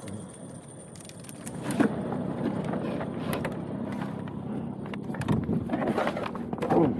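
Go-kart slowing and pulling off the racing line with its engine at low revs, with scattered clicks and knocks from the kart. It is quieter for the first second or so, then a sharp knock comes just under two seconds in.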